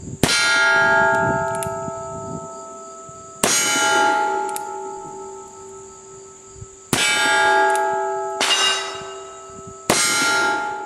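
Five shots from a .44 Starr single-action cap-and-ball revolver loaded with black powder, fired slowly a few seconds apart, the last three closer together. Each shot is followed by a long ringing tail.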